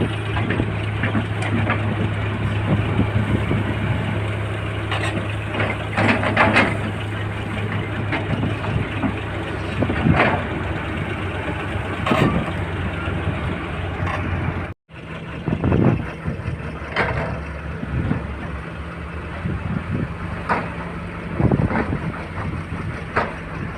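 Heavy diesel machinery running as an excavator loads soil into a truck: a steady engine hum with scattered clanks and knocks. The sound breaks off suddenly about 15 s in, and when it returns the engine hum is higher in pitch.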